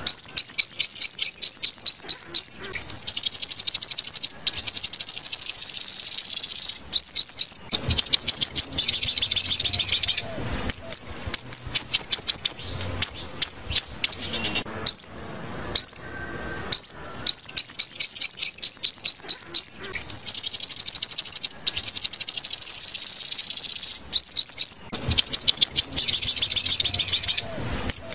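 Sunbird song played back as a trapping lure: rapid runs of high, sharp falling notes and fast trills in repeated phrases, the same sequence starting over about halfway through.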